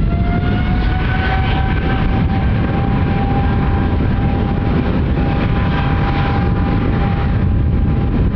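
Boeing 777's General Electric GE90 turbofan engines spooling up: a whine rises over a heavy, steady rumble for about the first second and a half, then holds at a steady pitch.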